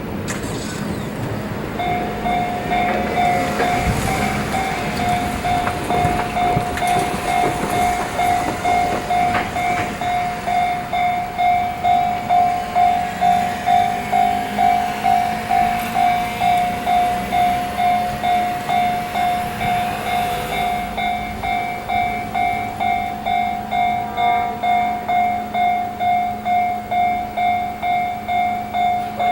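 Japanese level-crossing warning bell starts ringing about two seconds in and keeps up its steady repeated ding. Under it a 211 series electric train runs past for most of the first twenty seconds.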